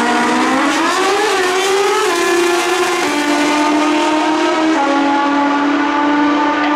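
Two Pro Street drag-racing motorcycles launching and racing down the track at full throttle: the engine pitch rises sharply off the line, then holds high with a step down in pitch at each gear change.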